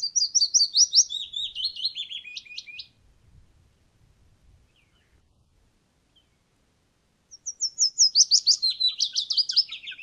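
Willow warbler song: two lilting, descending phrases of quick, sweet notes, each falling steadily in pitch, about four seconds apart.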